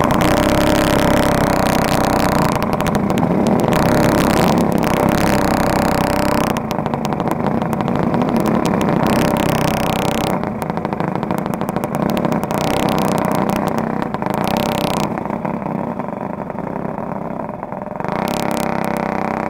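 Go-kart engines running at racing speed, a steady drone of several engine notes that shifts and swells as karts go by, easing a little toward the end before a stronger note comes in.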